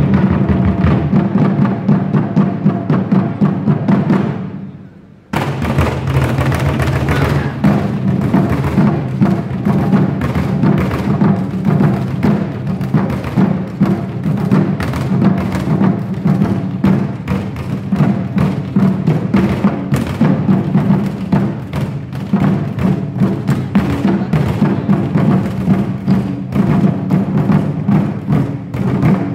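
An ensemble of drummers playing large Chinese barrel drums in fast, dense strokes. The drumming fades away about four seconds in, then starts again abruptly about a second later and keeps going.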